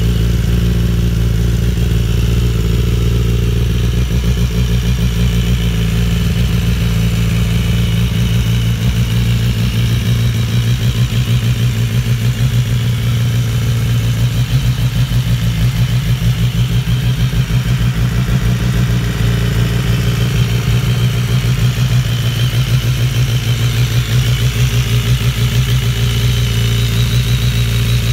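BMW S1000RR superbike's inline-four race engine idling steadily through its full titanium race exhaust, with an even pulsing beat and no revving.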